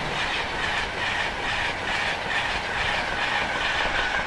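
Class 91-hauled InterCity 225 passenger train passing close at speed. Its coaches' wheels clatter rhythmically over the rails at about three to four beats a second.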